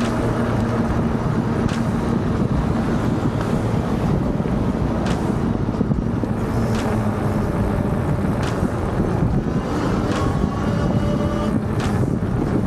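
Wind buffeting the camera microphone and road noise while riding an e-bike, with a light tick about every second and a half to two seconds.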